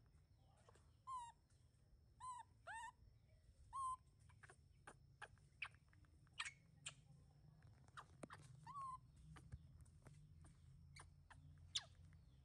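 Baby monkey giving short squeaky calls, four in quick succession in the first few seconds and one more past the middle, with scattered faint sharp chirps around them.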